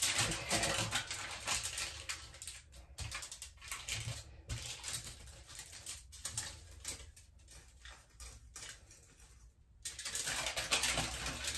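Aluminium foil crinkling and index cards rustling as they are folded and pressed flat by hand, irregular and stop-start. It goes quieter for a couple of seconds late on, then picks up again.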